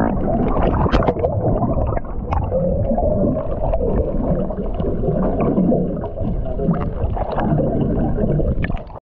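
Boat running under way, a muffled rumble and whine with scattered knocks from the hull meeting waves.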